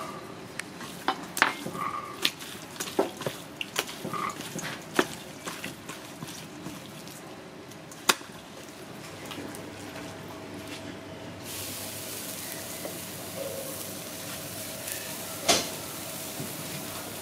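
Gloved hands and a fork handling seasoned meat in a stainless steel bowl, with quick clicks and knocks of metal and meat against the bowl. About halfway through, a steady sizzle of the meat on a charcoal grill takes over, with one sharp knock near the end.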